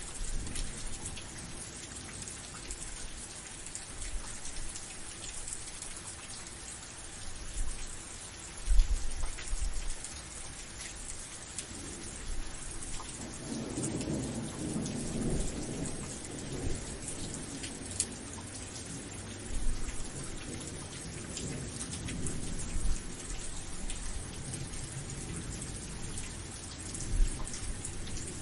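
Steady rain falling, with scattered ticks of drops. A low thump comes about nine seconds in, and thunder rumbles low for several seconds around the middle.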